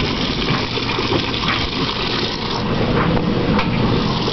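Top-loading washing machine filling, water running steadily into the tub.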